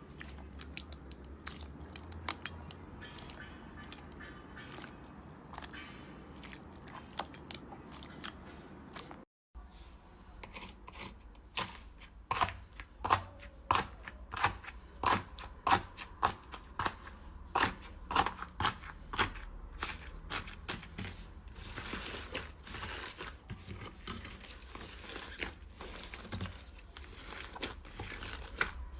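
Slime being squeezed and worked by hand: soft crackling at first, then, after a cut, a run of sharp pops about two a second as it is pressed, turning into denser crackling toward the end.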